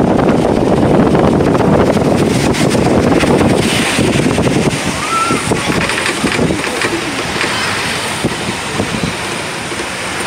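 Wind rushing over the microphone on the upper deck of a moving sightseeing bus, with street traffic underneath. The wind noise is heaviest in the first half and eases about halfway through.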